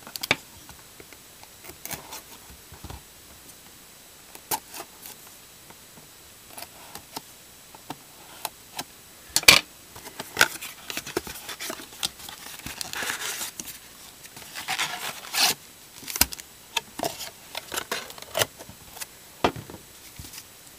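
A cardboard trading-card blaster box being opened and its wrapped packs handled: scattered clicks and taps of cardboard, with two longer stretches of tearing and crinkling about twelve and fifteen seconds in.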